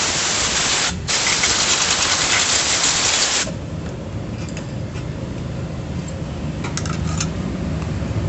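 Pressurised hissing from a handheld nozzle aimed at the exposed shaft of a Honda Vario's opened CVT case, in two blasts: one of about a second, a brief break, then one of about two and a half seconds that cuts off suddenly. A steady low hum runs underneath, with a few light clicks near the end.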